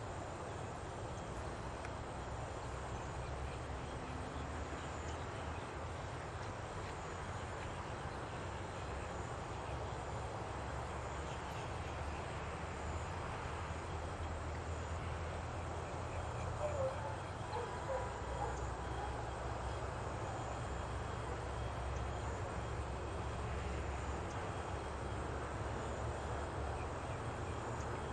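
Steady low outdoor background rumble, with a few faint short chirps a little past halfway.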